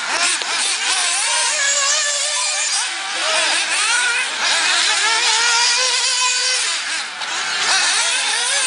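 Several 1/8-scale nitro RC buggy engines whining as they race, their pitch rising and falling over and over as they rev on the straights and ease off for the corners.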